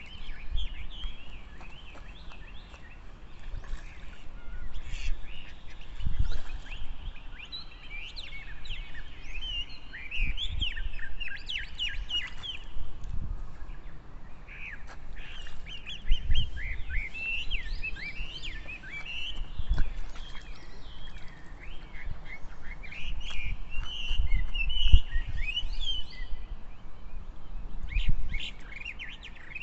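Birds chirping: a steady chatter of many short, high chirps runs throughout, with occasional low thumps underneath.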